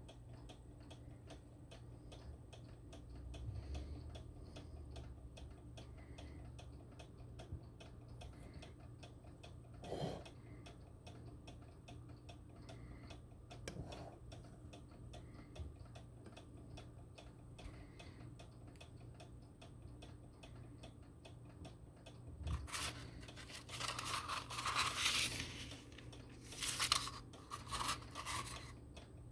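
Steady, rapid ticking throughout, with two soft knocks in the middle. Near the end come several seconds of louder rustling and crinkling.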